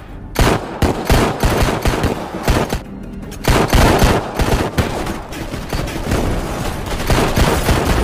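Film gunfight sound: repeated gunshots, with single cracks and quick volleys, over a dramatic music score.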